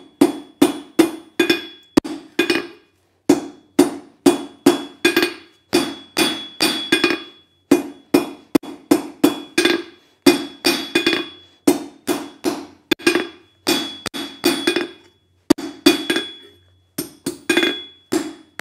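Blacksmith's hand hammer striking a red-hot steel bar on an anvil, flattening and pointing its end. The blows come in quick runs of about three a second, with short pauses between runs, and the anvil rings after each blow.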